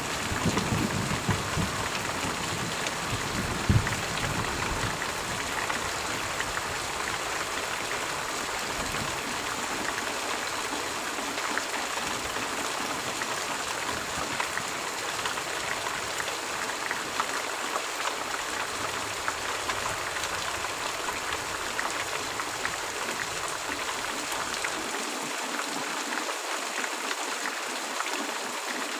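Steady, even rain, with the low rumble of thunder dying away over the first few seconds and one sharp clap about four seconds in.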